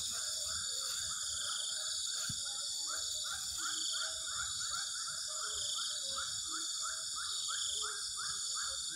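Outdoor insect chorus: a steady high-pitched drone, with a fast, regular chirping call repeating about three times a second.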